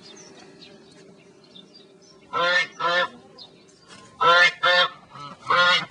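Domestic geese honking: five loud, short honks in quick pairs, starting about two seconds in, after a faint quiet start.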